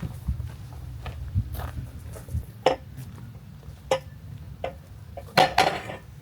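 A handful of sharp, irregular clinks and knocks, like hard objects being handled and set down, over a steady low hum; the loudest two come close together near the end.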